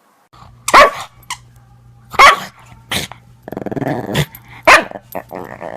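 Dog barking about four times, sharply, with growling between the barks.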